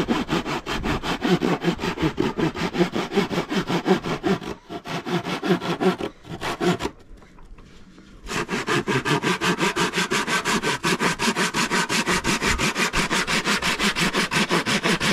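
Hand saw cutting through a weathered wooden plank in fast, even back-and-forth strokes, pausing for about a second and a half around the middle before sawing on.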